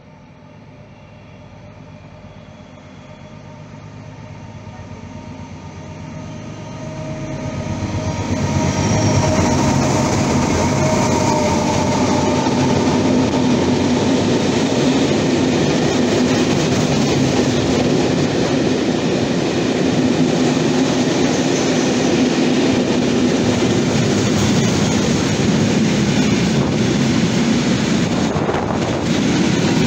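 A freight train approaches, growing louder over the first nine seconds or so, then rolls close past at speed. A long string of covered hopper wagons and open gravel-loaded wagons makes a steady, loud rumble and rattle of wheels on rail.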